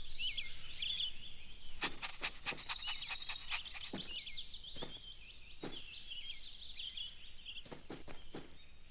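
Birds chirping and twittering throughout, with about ten short sharp taps scattered among them, several in quick succession near the end.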